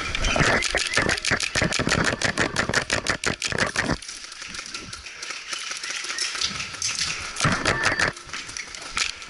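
Airsoft guns firing: a fast, even run of sharp cracks for about four seconds, then scattered short bursts later on.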